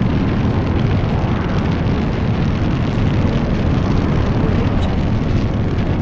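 Sci-fi sound effect of a burning star: a steady, dense rumble of fire-like noise, heaviest in the low end, with fine crackling on top.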